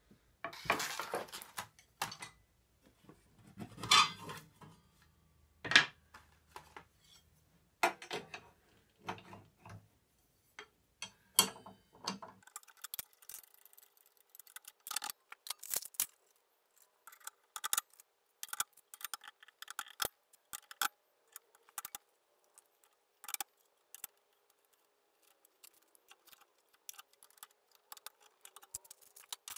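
Steel saw blades, chippers and a wrench clinking and clicking as a stacked dado blade set is fitted onto a table saw's arbor and the arbor nut is tightened. The clinks come at irregular intervals, with a few louder knocks in the first dozen seconds.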